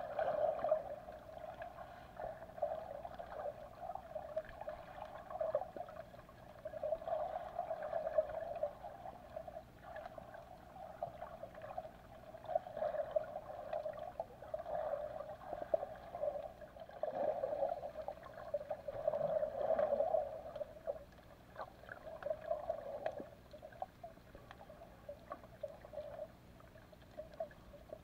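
Underwater sound picked up by a camera held below the surface: a muffled water rush that swells and fades every couple of seconds, with scattered faint clicks.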